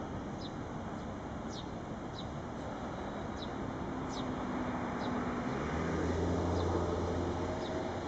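Steady outdoor background noise, with a motor vehicle's engine growing louder through the second half. A bird's short, high, falling chirps recur about once a second.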